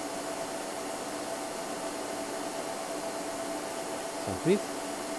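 Steady fan hum and hiss, with a few constant tones running underneath.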